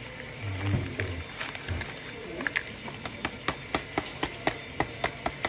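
A foil spice packet being tapped to shake tikka masala powder into a bowl: a run of sharp, even clicks, about four a second, starting a couple of seconds in.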